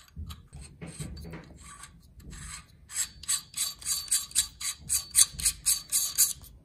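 Threaded adapter ring being screwed by hand onto the front of a cooled astronomy camera: soft handling and rubbing at first, then a quick run of short rasping clicks, about four a second, as the threads are turned in repeated twists.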